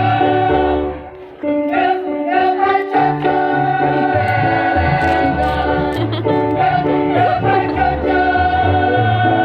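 Choir singing with musical accompaniment and a steady bass line. The sound dips briefly about a second in, then the singing resumes.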